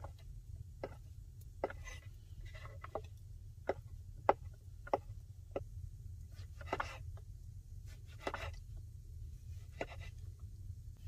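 Cleaver-style kitchen knife cutting cheese on a wooden cutting board: sharp irregular taps of the blade on the board, about one a second for the first six seconds, then a few longer scraping sounds as the pieces are cut and pushed.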